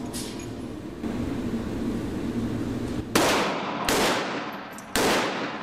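Three gunshots about a second apart in the second half, each a sharp report with a ringing tail.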